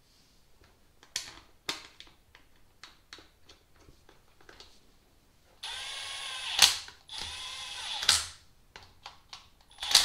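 Cordless electric ratchet run twice, about a second each, spinning bolts down into the engine, each run ending in a sharp snap as the bolt seats. Light clicks and taps of bolts and tool come before, and a loud click near the end.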